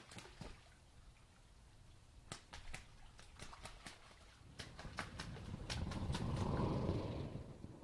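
Two mallard drakes fighting in shallow water: a string of sharp splashes and wing slaps, with the water churning louder about five to seven seconds in.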